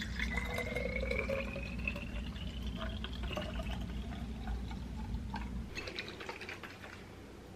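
Celery juice poured from a jug into glass bottles, with the pitch of the filling rising steadily as they fill. The pouring stops about five and a half seconds in, and only faint clicks follow.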